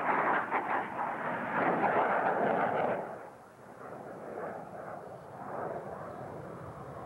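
Jet engine noise from a fighter jet manoeuvring overhead, loud and crackling, dropping off sharply about three seconds in to a fainter, lower rumble.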